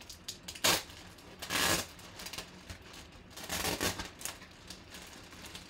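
Clear plastic bag around a boxed jersey crinkling as hands grip and lift it, in a few short rustles, the last one longer.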